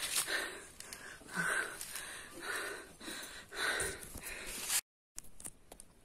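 A person panting hard after a steep climb, with about one strong in-and-out breath a second. The breathing breaks off abruptly near the end.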